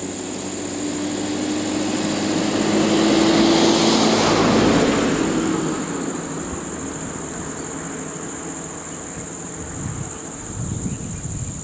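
Isuzu Elf box truck driving past close by: engine and tyre noise that builds to a peak about four seconds in and then fades away, over a steady high-pitched drone.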